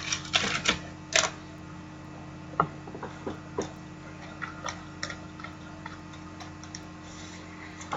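Scattered light clicks and taps, irregular and a second or so apart, over a steady low electrical hum.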